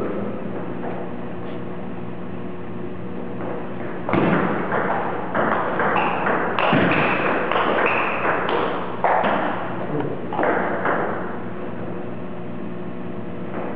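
Table tennis rally: the ball knocking off the paddles and bouncing on the table in a quick, fairly even run of hits, starting about four seconds in and stopping a couple of seconds before the end. A steady low hum runs underneath.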